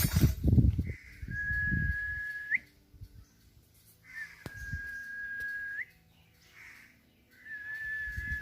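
Three long, steady whistled notes, each about a second and a half, ending with a quick upward flick, a few seconds apart. Low thumps and rumble come in the first two seconds.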